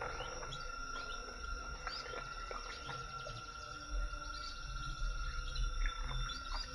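Tropical forest ambience: many short bird chirps and quick whistled calls over a steady, high insect drone. A low rumble comes in about four seconds in.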